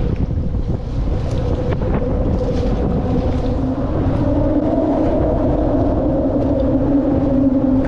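Wind buffeting the microphone in a low rumble, under a steady engine drone that rises slightly in pitch about halfway through.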